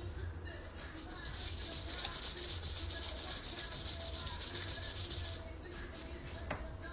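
A fast, rhythmic rubbing sound, about ten strokes a second, lasting about four seconds from just over a second in, over a steady low hum, with a single sharp click near the end.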